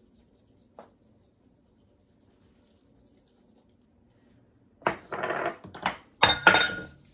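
Metal kitchen utensils clattering and clinking together as they are rummaged through, in a dense run of knocks with a brief metallic ring over the last two seconds or so. Before that there is only a single faint click.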